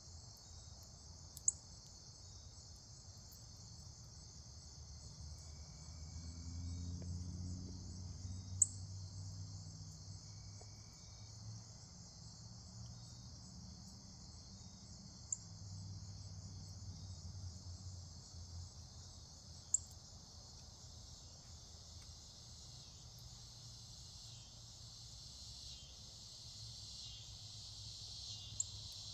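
Steady chorus of crickets, a continuous high trill. A low rumble swells in about six seconds in and fades out by about eighteen seconds, and a few sharp clicks sound now and then.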